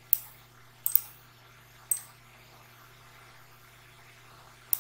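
Computer mouse buttons clicking: five sharp clicks, including a quick double click about a second in, over a faint steady low hum.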